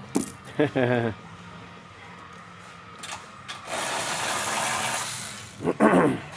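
A cordless power ratchet runs steadily for about two seconds in the middle, driving a fastener on the car's front end. There is a click near the start.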